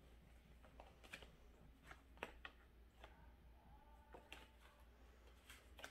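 Near silence with a few faint, scattered clicks of tarot cards being handled and shuffled.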